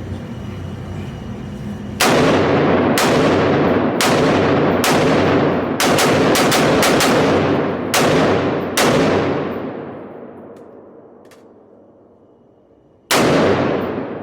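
Gunshots from a 5.56 AR pistol, about a dozen rounds, each with a long echoing tail. The first few come about a second apart, then a quick string of five, two more, and after a pause of about four seconds a last shot near the end.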